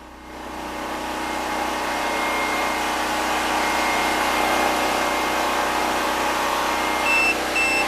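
Predator 6500 generator's single-cylinder engine running steadily, growing louder over the first second or so. Three short high beeps sound near the end.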